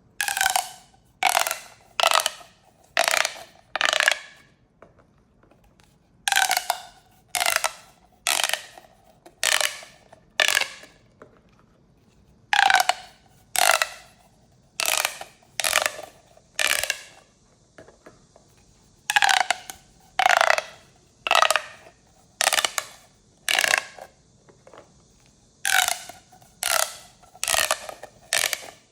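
Corrugated plastic pop tubes being pulled and pushed, each stroke a short ratcheting zip as the ridges snap open or shut. The zips come in sets of about five, roughly a second apart, with a pause of about two seconds between sets.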